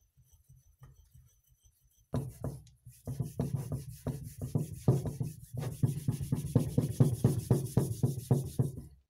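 Small metal part rubbed back and forth by hand on a flat sharpening stone: rhythmic scraping strokes, about four a second, starting about two seconds in and cutting off near the end.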